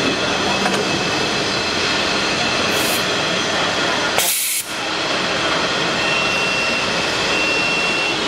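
Horizontal liquid silicone rubber injection moulding machine running steadily, with two short hisses of air, the second louder and about half a second long, a little over four seconds in.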